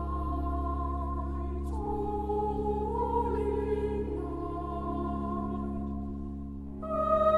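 Choir music: voices holding long, slowly changing chords over a steady low hum. Near the end a louder, brighter held chord comes in.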